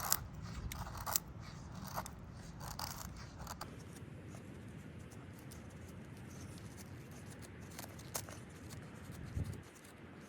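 Close handling sounds: a run of crisp clicks and snips in the first few seconds, then a steady low background with one more click and a dull thump near the end.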